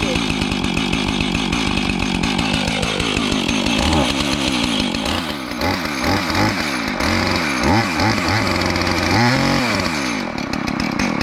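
Two-stroke gas chainsaw running just after being pull-started with several tries: it settles down to idle a couple of seconds in, then is revved up and down repeatedly.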